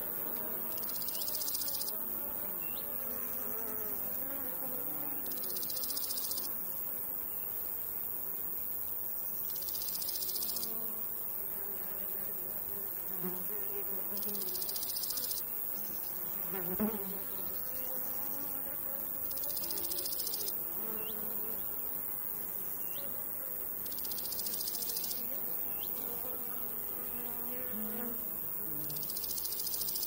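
Summer meadow insects: flies and bees buzzing, with a cricket chirring high-pitched in bursts of about a second and a half, roughly every four seconds.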